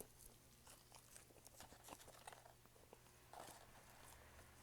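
Faint chewing: soft, irregular mouth clicks and small crackles of someone eating fast food, over a low steady hum.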